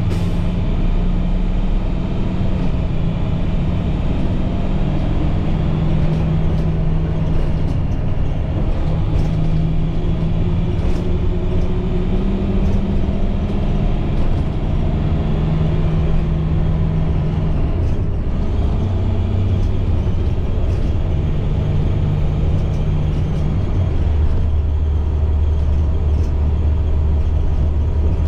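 A 2010 IC CE300 school bus's MaxxForce DT diesel engine running under way, heard from inside the bus, with road noise and scattered rattles. The engine note steps up and down several times, and a deeper low drone comes in near the end. The automatic transmission is struggling to upshift.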